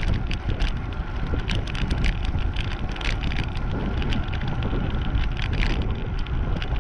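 Strong wind buffeting the microphone while a bicycle rides along an asphalt road, a steady low rumble of wind and tyre noise. Irregular light clicks and rattles from the bike run through it.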